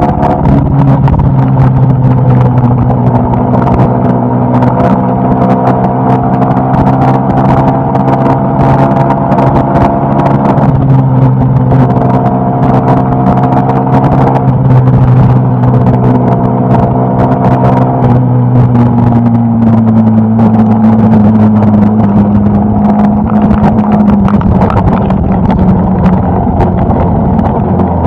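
Suzuki Gixxer SF250's 249 cc single-cylinder engine running steadily at speed, its note sinking slowly as the bike slows, most clearly from about 18 seconds in, over a constant rush of wind.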